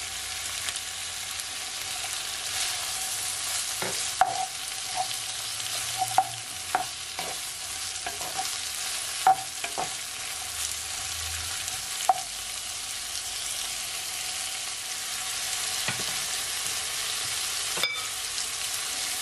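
Sliced peppers, carrot and onion sizzling in oil in a nonstick wok, with a steady hiss. A wooden spatula stirs them, knocking and scraping against the pan several times in the first half and twice more near the end.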